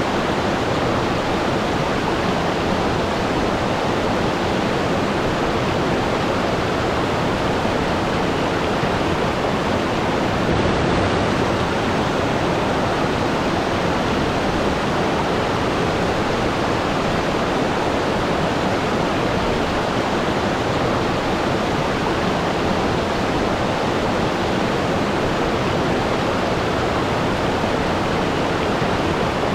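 Waterfall: water falling and rushing in a steady, unchanging roar.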